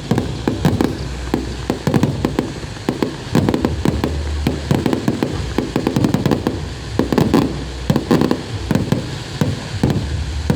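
Aerial fireworks bursting in rapid, overlapping succession: a dense run of sharp bangs and low booms with almost no gap between them.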